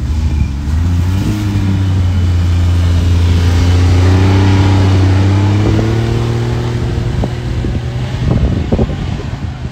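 An engine running steadily and rising a little in pitch. It grows louder to a peak around the middle, then fades away, like a motor vehicle passing close by. A few short knocks come near the end.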